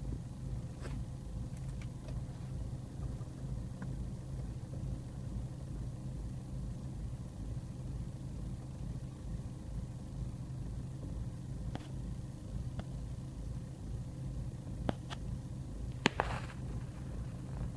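BMW E46 320d's M47N four-cylinder common-rail turbodiesel idling with a steady low pulsing rumble: a rough idle that persists despite a new MAF sensor, blocked EGR, removed swirl flaps and new vacuum hoses. A few short sharp clicks sound late on.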